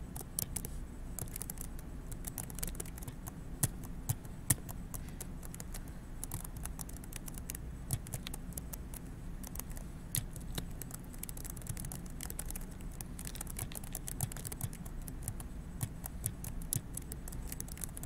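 Computer keyboard being typed on: irregular runs of key clicks, several a second, over a faint low hum.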